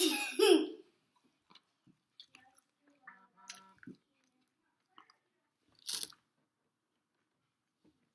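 A person chewing food close to the microphone, with scattered wet mouth clicks and smacks and a sharp noisy smack or crunch about six seconds in. A short voiced sound with a sliding pitch opens the stretch.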